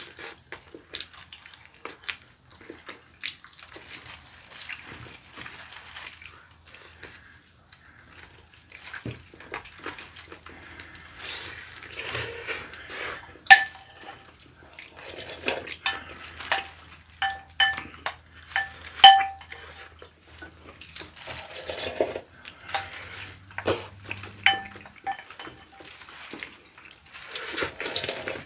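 A spoon or chopsticks clinking against a glass bowl, many short clinks with a ringing note, mixed with eating noises.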